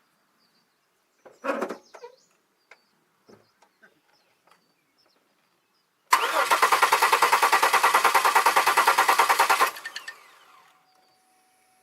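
The 2002 Chevy Malibu's V6 is cranked over by the starter for about three and a half seconds, with an even, rhythmic pulsing, and does not catch. It cranks without starting because, with spark confirmed, the fuel injectors are not firing. A short knock comes a second and a half in.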